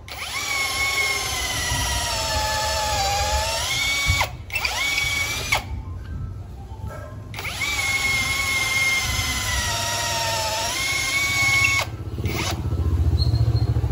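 HUKAN 533 cordless drill boring a 12 mm wood bit through a wooden block. The motor whine sags in pitch as the bit bites and rises again as it frees. It stops briefly about four seconds in, and again for about a second and a half around six seconds. In the last two seconds the whine drops out and a heavier low rumble takes over.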